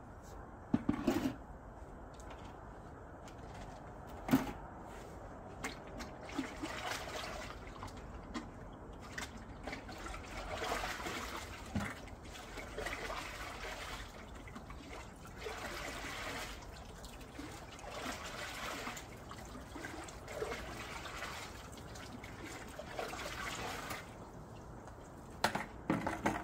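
Water trickling and splashing into a koi pond, swelling and fading several times, with a few sharp knocks.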